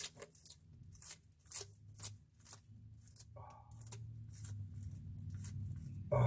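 Bearded dragon chewing a dubia roach: a dozen or so crisp crunches of the roach's shell, irregularly spaced about every half second, loudest in the first couple of seconds and fainter after.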